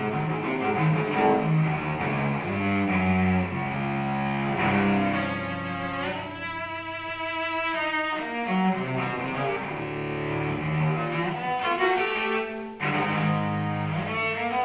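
Bowed string music led by cello, playing a slow line of held notes over a low sustained bass note, with a high sustained note about halfway through and a new louder phrase near the end.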